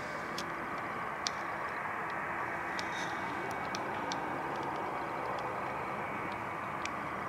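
Steady roar of jet aircraft engines, holding level with no clear rise or fall, with a few faint clicks scattered through it.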